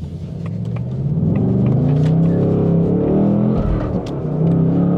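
2024 Mustang Dark Horse's 5.0-litre Coyote V8 and exhaust, heard from inside the cabin, accelerating hard out of a corner, the note climbing in pitch. It eases off briefly about four seconds in, then pulls again.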